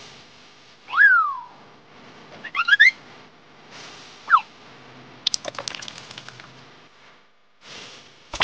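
Short whistle-like sound effects: a glide up and back down about a second in, a quick rising run of notes near three seconds, and a falling glide at about four seconds. A rapid patter of clicks follows just after five seconds.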